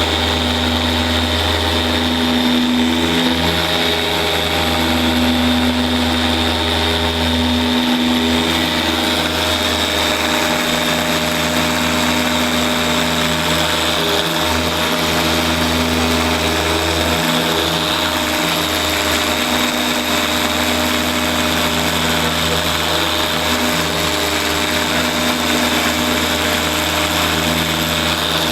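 Dual-action polisher running steadily at speed setting 5, buffing wet-sanding marks out of car clearcoat with a microfiber pad. Its hum dips briefly a few times.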